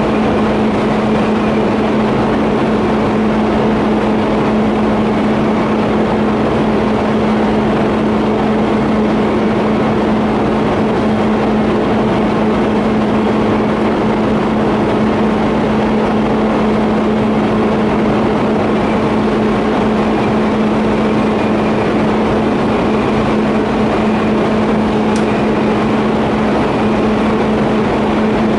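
TIG welding arc on a 50A pipe flange and elbow: a steady hum with an even hiss, unchanging, with one faint tick about 25 seconds in.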